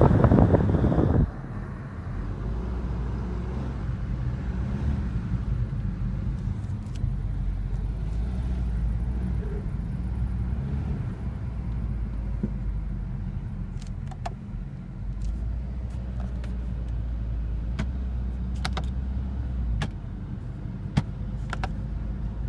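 BMW 320d F31 running with a steady low rumble, with several faint sharp clicks in the second half. It opens with about a second of loud rushing wind noise on the microphone that cuts off suddenly.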